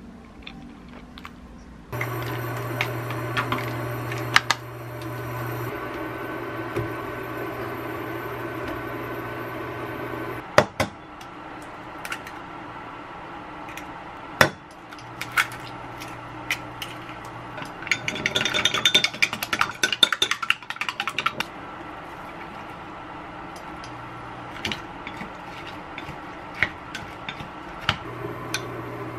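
Kitchen prep sounds: a few sharp knocks, such as an egg tapped and cracked on a ceramic mug, then a few seconds of fast clicking a little past the middle as eggs are beaten with chopsticks in the mug, over a steady low hum that comes and goes.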